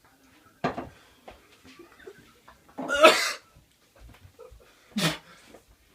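A man coughing in short harsh bursts from the burn of a ghost chilli he has just eaten. There are three bursts: one early, the loudest and longest about three seconds in, and a last one about five seconds in.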